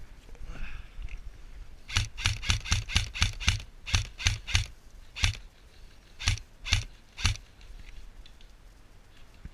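Airsoft gun firing in single shots: a quick string of about a dozen sharp cracks, each with a low thump, then a few spaced single shots.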